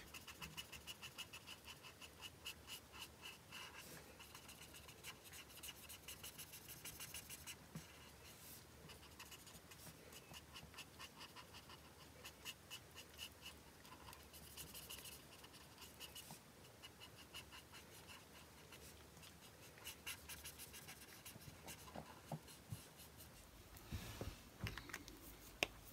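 Ohuhu alcohol marker nib rubbing back and forth on white card stock, blending grey ink: faint, quick strokes at several a second, in runs broken by short pauses.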